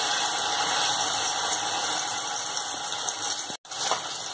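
Pieces of boiled besan gatte (gram-flour dumplings) sizzling steadily as they deep-fry in hot oil in a kadhai. The sizzle cuts out for an instant about three and a half seconds in.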